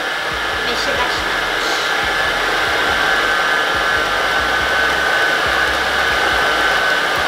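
Arno electric stand mixer running at steady speed, its beaters churning thick slime in the bowl: an even motor whine with a steady high tone.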